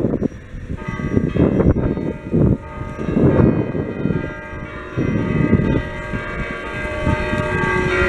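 Bronze church bells from a five-bell set cast by Achille Mazzola in 1951, tuned on a slightly flat E-flat, struck and left ringing in long overlapping tones. They start about a second in, and a fresh stroke comes near the end. Low gusts of wind rumble on the microphone.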